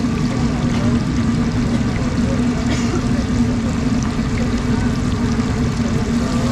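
Fish deep-frying in a large wok of hot oil, sizzling and bubbling steadily, over a steady low hum and rumble.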